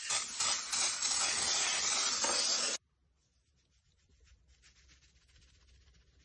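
PAM aerosol cooking spray hissing in a long, steady spray onto a metal baking pan, cutting off sharply about three seconds in. After that comes faint rattling from a seasoning shaker being shaken over fish fillets.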